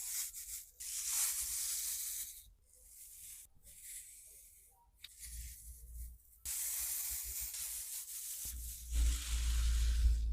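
Hands rubbing and squeezing a soft foam squishy toy, heard as scratchy rubbing noise in several bursts of a second or more, with a low rumble under the last one near the end.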